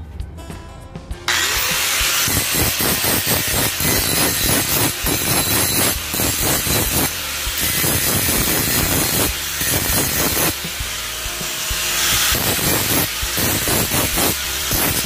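Handheld angle grinder grinding rust off the steel shaft of an old shovel, throwing sparks. It starts suddenly about a second in and the grinding noise surges and eases as the disc is pressed on and lifted off the metal.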